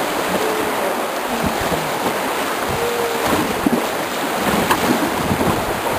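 Fast river water rushing and splashing along an inflatable raft, with wind buffeting the microphone.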